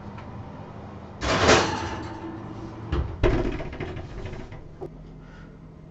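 A heavy enamelled cast-iron casserole pot going into an electric oven: a scraping rush about a second in, then a knock and a louder clatter about three seconds in as the pot settles on the shelf and the oven door shuts.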